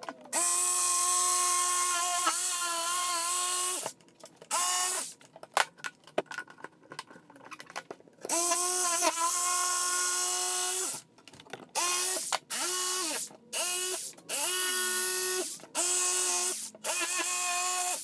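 Corded jigsaw cutting a 3/4-inch alder board, running in bursts: a run of about three and a half seconds, another of nearly three seconds, then a string of short runs. The motor's whine dips in pitch at moments as the blade loads in the cut, with short clicks and taps between runs.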